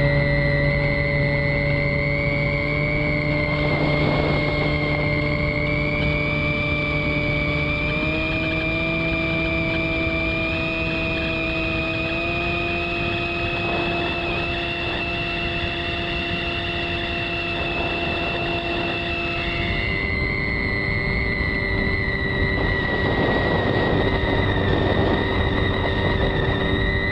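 Onboard sound of a Skywalker model plane's electric motor and propeller running in flight: a steady whine over rushing air. The pitch steps up twice in the first half, as the throttle is opened, and drops back about two-thirds of the way through.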